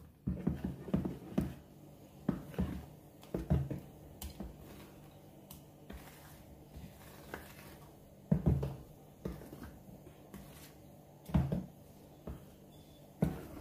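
Ladle stirring thick fermented dosa batter in a plastic bowl: irregular soft knocks and scrapes of the ladle against the bowl with wet slaps of batter, strongest near the start and again about eight and eleven seconds in, over a faint steady hum.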